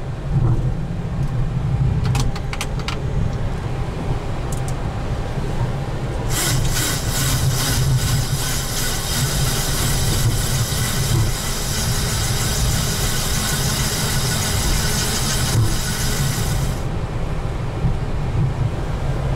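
Boeing 737NG flight deck while taxiing after landing: a steady low rumble of the engines at idle and the aircraft rolling. About six seconds in a loud hiss joins it and stops abruptly some ten seconds later.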